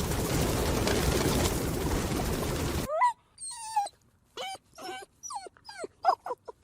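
A steady rushing noise cuts off abruptly about three seconds in. A puppy then whimpers in a run of short, high, whining cries that slide up and down in pitch, about two a second.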